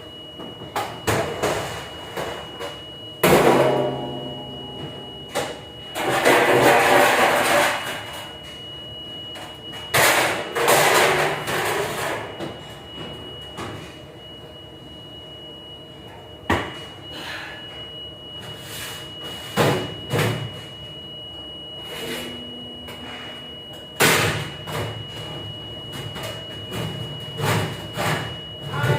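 Dishwashing-area clatter: repeated knocks and clangs, with a few rushing stretches lasting a second or two and a steady high-pitched machine whine underneath.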